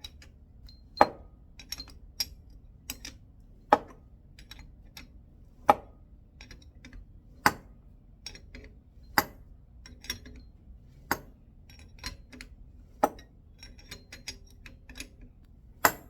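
Metal tool clinking against the threaded adjuster nut of a QA1 coilover as the nut is turned in steps: a sharp clink about every two seconds, with lighter clicks between.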